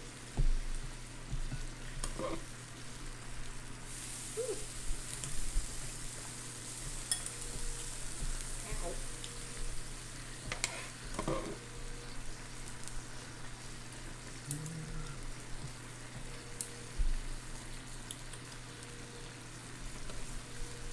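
Food sizzling on an electric smokeless grill, a steady hiss that turns sharper about four seconds in, with a few light clicks scattered through it.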